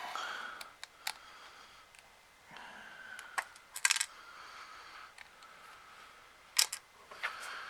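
Sharp clicks and taps of small plastic and metal parts of a Nintendo 3DS XL being handled during disassembly, with a cluster of louder clicks about four seconds in and soft scraping between.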